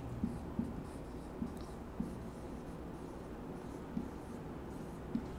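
Whiteboard marker writing on a whiteboard: a few short taps and light strokes as the letters are formed.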